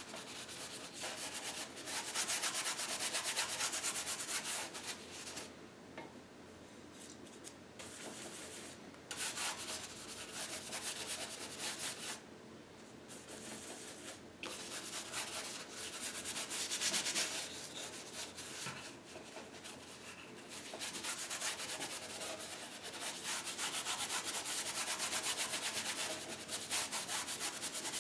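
Paintbrush scrubbing acrylic paint, a dry rubbing swish of many quick strokes, with brief lulls about six and twelve seconds in.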